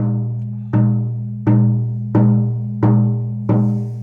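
Calf-hide harmonic shamanic hand drum struck in a steady beat, six strokes about two-thirds of a second apart. Each stroke rings on with a long sustain in a low, deep tone that slowly fades before the next.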